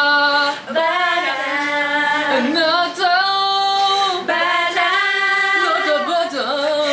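A group of women singing together without accompaniment, holding long notes that change pitch about once a second.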